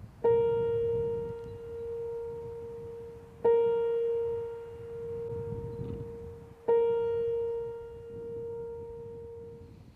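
Music: a single piano-like note struck three times, about three seconds apart, each left to ring out and fade, over a faint low wash of sound.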